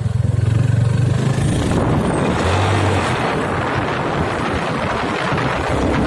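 Motorcycle engine running while riding, with wind rushing over the microphone. The engine's low hum is plainest in the first second or so, and the wind noise grows from about two seconds in.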